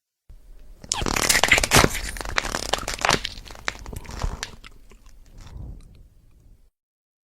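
Bone-breaking sound effect: a dense burst of crunching and sharp cracks starts about a second in, is loudest over the next two seconds, then thins into scattered cracks and fades out.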